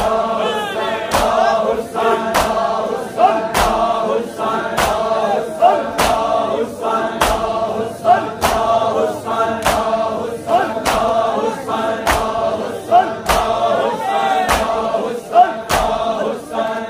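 A crowd of men chanting a Shia noha together, with loud, evenly timed chest-beating (matam) strikes from the mourners, a little more than one a second.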